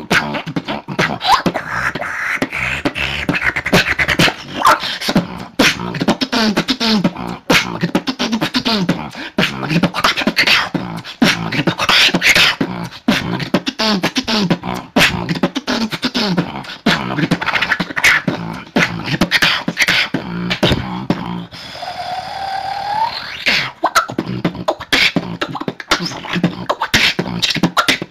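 Beatboxing heard over online voice chat: fast vocal kicks, snares and hi-hats with pitched bass lines. About three-quarters of the way through, the beat breaks briefly for a single rising pitched note.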